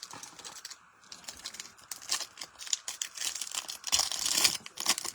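Trading-card packs and cards being handled: foil wrappers crinkling and rustling, with many small clicks as cards slide past each other. The rustling grows busier and louder about two seconds in.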